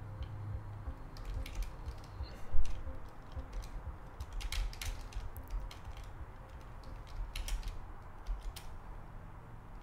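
Computer keyboard keys clicking in a few short, scattered clusters, with one louder thump about two and a half seconds in.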